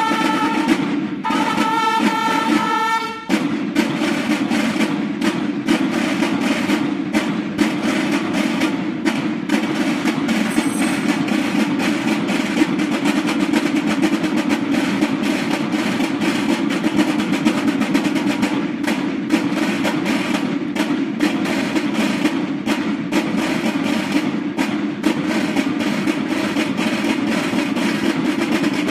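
School marching drum-and-bugle band (banda de guerra): bugles hold a brief call for the first few seconds, then the marching snare drums play a fast, unbroken cadence for the rest.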